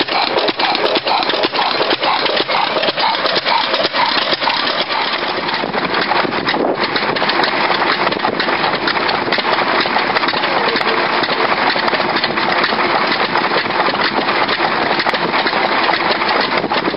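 Vintage single-cylinder stationary engines running close by, first a Fairbanks-Morse and then a Lister, making a loud, dense clatter of rapid knocks. The sound turns into a steadier, thicker din from about six seconds in.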